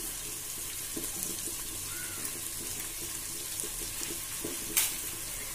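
Sliced onions sizzling in oil in a pot as they sauté: a steady hiss with faint scattered crackles. One sharp click near the end.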